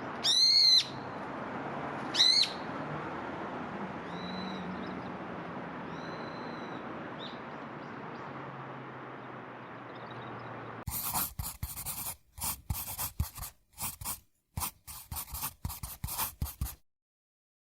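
A bird gives two loud, shrill, arching calls, then two fainter shorter calls over a steady outdoor hiss. From about eleven seconds in, a run of rough, irregular crackling bursts takes over and then cuts off suddenly.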